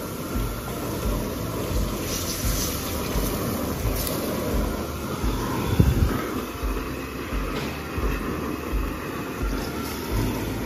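Background music with a steady low beat, about three beats every two seconds, and one louder thump near the middle.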